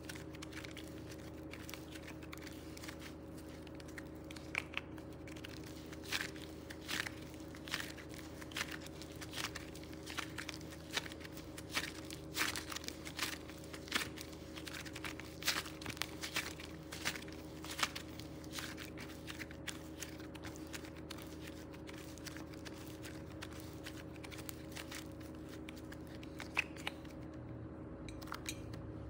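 Hands stretching, twisting and folding slime, its sticky mass giving off a run of small clicks and pops, thickest through the middle and thinning toward the end, over a steady low hum.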